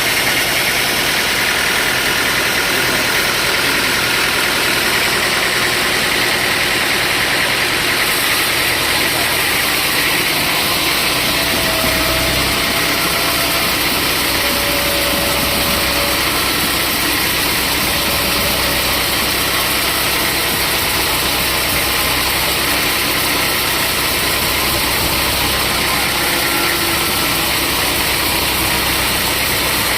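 Sawmill machinery running steadily: a motor's drone under a broad hiss, with the low hum growing heavier about ten to twelve seconds in.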